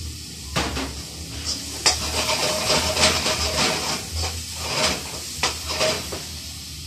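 Food sizzling in a hot wok over a gas burner, the hiss rising suddenly about half a second in, while a metal ladle stirs and scrapes against the pan in short strokes.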